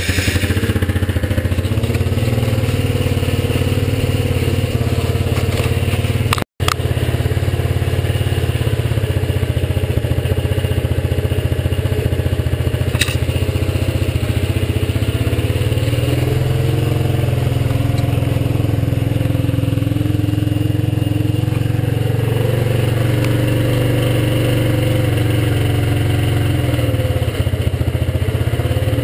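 Suzuki GZ125 Marauder's 125 cc air-cooled single-cylinder four-stroke engine catching at the start and settling into a steady idle, its first run after three months standing. The sound drops out for an instant about six and a half seconds in.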